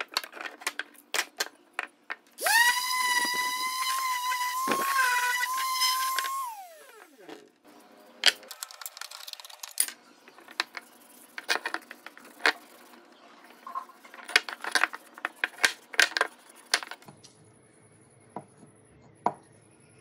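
A small electric power tool whines at a steady speed for about four seconds and then winds down. Before and after it come scattered clicks and knocks of hand tools and wood being handled on a workbench.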